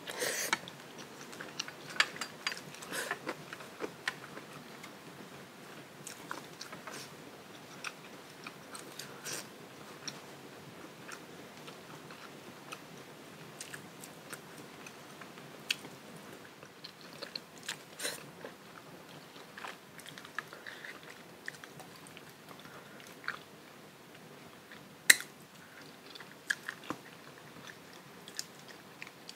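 A person eating close to the microphone: chewing and biting, with scattered clicks and smacks. The sharpest click comes about 25 seconds in.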